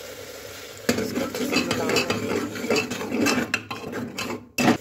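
A spoon stirring and scraping thick masala in an aluminium pressure cooker pot, with quick irregular clinks against the metal, starting about a second in.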